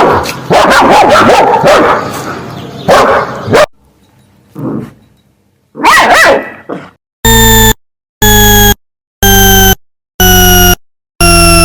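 Dogs barking and whining in quick, overlapping calls, with another loud whining call about six seconds in. After that come five identical buzzer-like beeps, about one a second, each lasting half a second.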